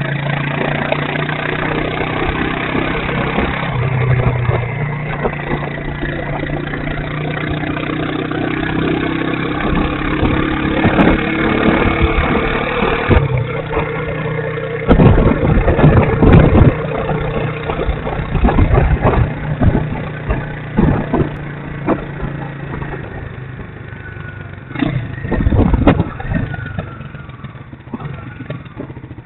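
Motorcycle engine running under way, its pitch rising and shifting as it pulls through the gears. From about halfway, loud irregular gusts of wind buffet the bike-mounted microphone.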